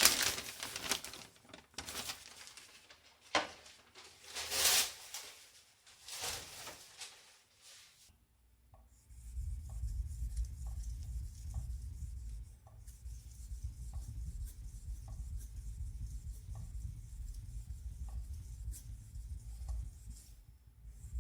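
Kitchen knife blade stroked across a whetstone: several separate scraping strokes in the first eight seconds. After that a low steady rumble sets in, with faint ticks about once a second.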